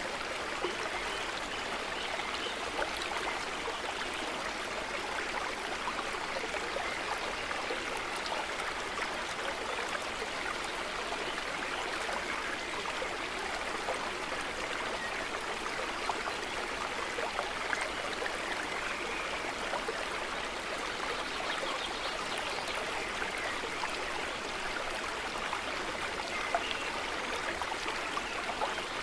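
Small stream running steadily over stones, a continuous trickling and splashing of water.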